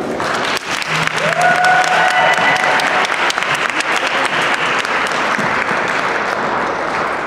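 Congregation applauding after a worship song, a dense steady clapping that eases off slightly toward the end.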